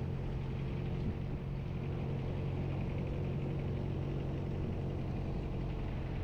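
A vehicle engine running at a steady speed, a low even hum that does not change.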